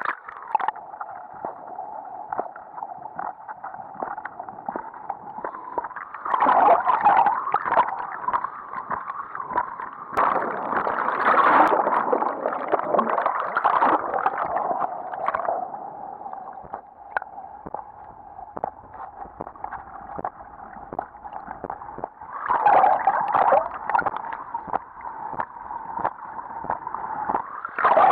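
Water rushing and splashing over an action camera sliding down a tube waterslide, heard muffled and partly under water, with many small knocks. It swells into louder splashing three times, about six seconds in, around ten to fifteen seconds, and near twenty-three seconds.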